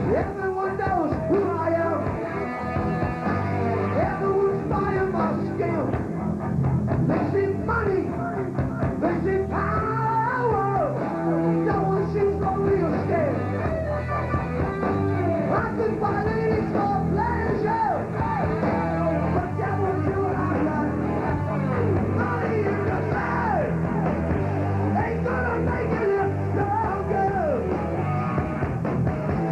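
Rock band playing live, with electric guitars and drums, in a full, continuous wash of loud sound.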